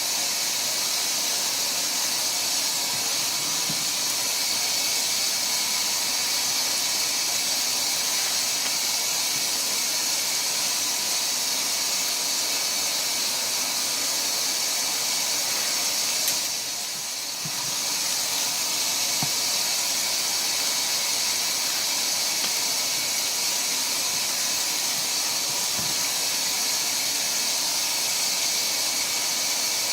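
A steady, even hiss, with a click a little past halfway followed by a brief dip in level.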